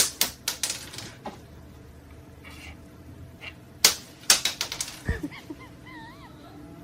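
Sharp clicks and taps in two clusters, one at the start and another about four seconds in, followed by a faint wavering squeak for about a second near the end.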